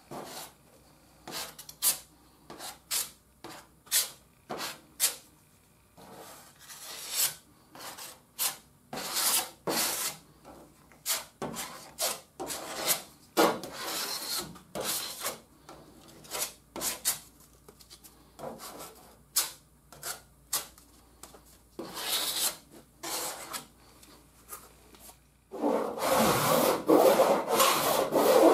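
A plastic spreader scraping body filler across the sheet metal of a wheel arch in short strokes, about one or two a second with pauses. Near the end the sound turns into a louder, continuous rasping as a hand file is drawn across the set filler to shape it.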